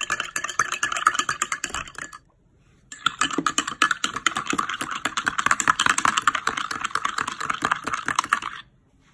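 Metal spoon stirred fast in a small ceramic cup, clinking rapidly against its sides as it whisks a soapy liquid mixture. The clinking breaks off for under a second about two seconds in, then resumes and stops shortly before the end.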